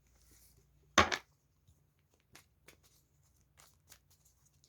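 Tarot cards being handled on a table: a sharp double snap of the deck about a second in, then light, scattered card rustles and taps.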